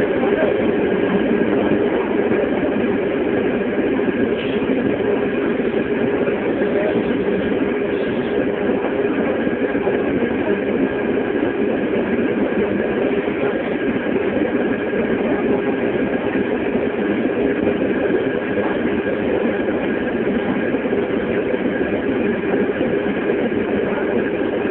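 A motor running at a steady speed: an even drone with a constant mid-pitched whine.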